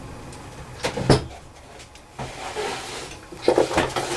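Hand-handled tools and small hardware knocking and clattering: two sharp knocks about a second in, then a burst of clatter near the end, as when rummaging for a screwdriver.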